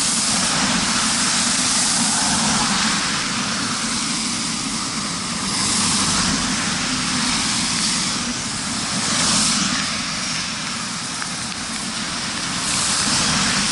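Cars passing close by on a rain-soaked road, their tyres hissing through the water, the sound swelling and fading four times over steady rain.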